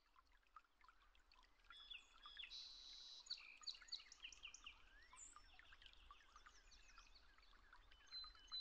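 Faint chorus of small songbirds, many short chirps and trills overlapping, over a light outdoor hiss.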